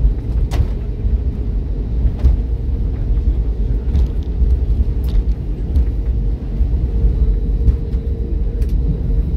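Cabin noise aboard an Airbus A320neo rolling on the runway after landing: a steady low rumble from the wheels and engines, with a faint steady hum and a few light knocks.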